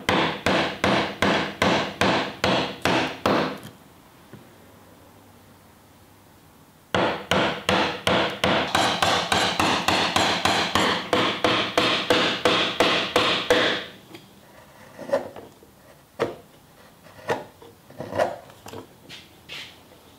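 Chisel being struck in quick, regular blows, about four to five a second, chopping out the blade opening in a wooden Japanese plane body. There are two runs of blows with a pause of about three seconds between them, then a few scattered lighter taps near the end.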